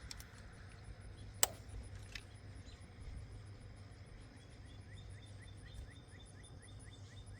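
A sharp click about a second and a half in, with a smaller one shortly after, from handling the electrical connector on a VVT solenoid. Behind it, a steady low hum and, in the second half, a faint run of short high chirps, a few per second, typical of an insect.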